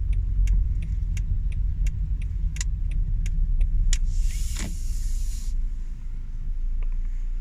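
Car running on the road, heard from inside: a steady low rumble with small sharp clicks, and a burst of hiss about four seconds in.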